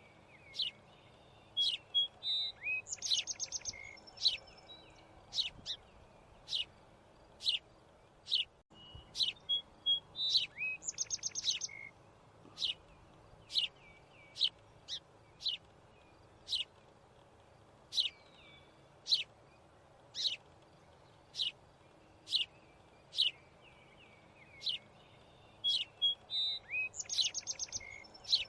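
Bird chirping: short, sharp chirps about once a second, each sliding down in pitch, broken three times by a quick rattling trill.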